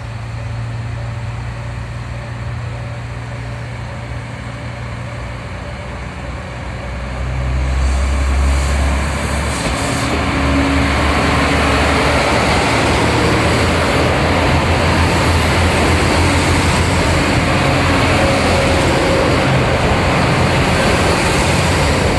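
Local diesel railcar departing a station: the engine hums steadily at first, then about seven seconds in the engine and running noise swell as the train pulls away, settling into a steady, loud rumble of engine and wheels as it gathers speed.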